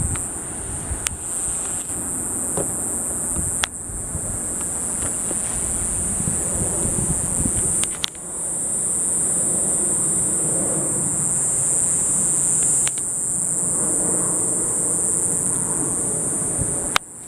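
Insects buzzing in a steady, high-pitched drone that drops out for a moment about eight seconds in and cuts off suddenly near the end.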